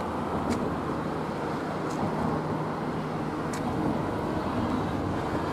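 Steady road-traffic noise, an even rumble and hiss without speech, with three faint short ticks spread through it.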